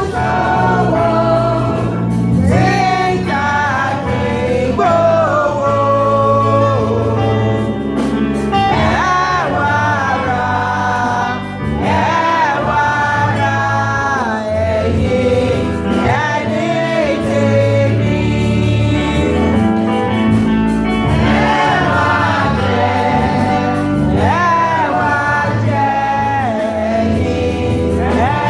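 A choir sings a Yoruba gospel hymn with instrumental backing and a steady bass line.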